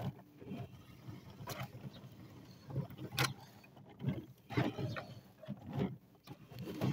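Hoover Spin Sweeper L1400, a push-powered outdoor sweeper, being pushed along a driveway: wheels rolling and the brush roll sweeping up grass clippings, in uneven swells with a couple of sharp clatters. The sweeper is struggling with the clumped clippings, which keep jamming its brush roll.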